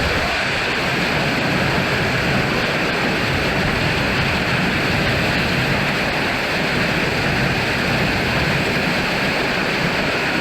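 Summer storm: strong wind with rain and hail beating down, heard as a loud, steady, unbroken rush of noise.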